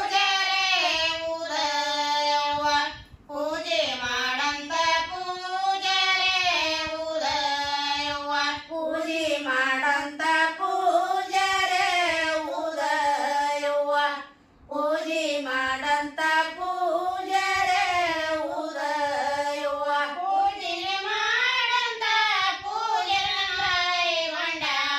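Women singing a North Karnataka folk devotional song (janapada geete) in Kannada, a single melody line with long held notes, with short breaks for breath about three seconds in and again about halfway through.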